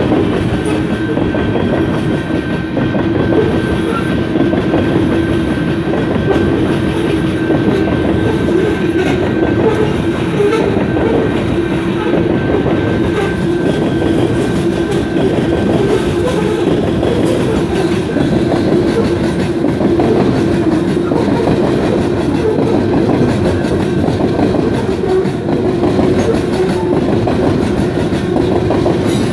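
Canadian Pacific coal train's open-top coal cars rolling past close by: steady noise of steel wheels running on the rails, with a constant droning tone underneath.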